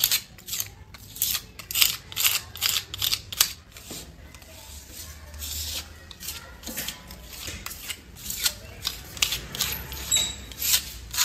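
Putty blade scraping crack seal paste into a crack in a rough cement-plastered wall: quick repeated scrapes, about three a second, with a smoother, longer stretch of spreading in the middle.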